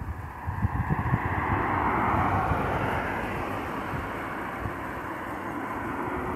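A car passing on the road, its tyre and engine noise swelling to a peak about two seconds in and then slowly fading.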